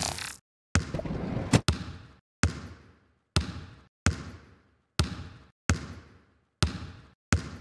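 A basketball bouncing on a hard court, about nine bounces a little under a second apart, each sharp hit followed by an echo that dies away before the next.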